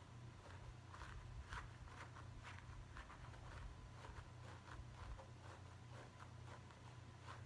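Faint, soft scratching strokes on hair and scalp, several a second at an uneven pace, over a low steady hum.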